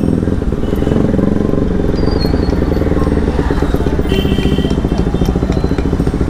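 Bajaj Pulsar RS200's single-cylinder engine running as the bike is ridden slowly, its exhaust beat pulsing steadily. A horn beeps briefly about four seconds in.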